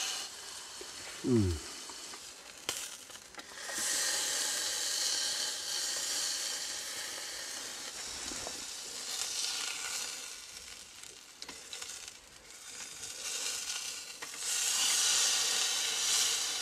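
Steak sizzling as it sears on the titanium grill plate of a tiny gas burner. The sizzle swells louder about four seconds in and again near the end. There is a brief low falling sound about a second in.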